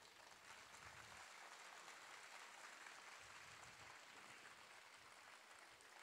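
Faint audience applause, an even clapping patter that thins slightly toward the end.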